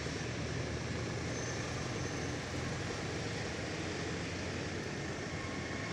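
A minibus engine running steadily as the bus moves slowly, with no revving.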